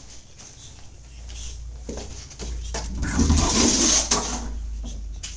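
Footsteps and camera handling noise of someone walking through an empty house towards a door. A louder burst of noise comes about three seconds in and lasts about a second.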